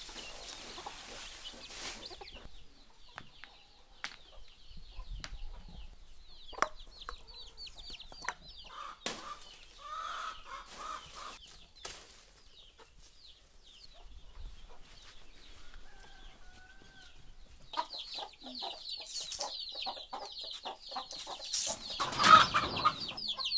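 Chickens clucking, with rapid high-pitched chirping that grows dense near the end, among scattered knocks and rustles.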